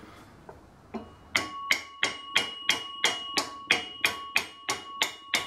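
Mallet tapping the end of an arbor press's handwheel shaft to drive it home, about three light, even blows a second starting about a second in. The struck metal gives a steady ring at two pitches that carries on between the blows.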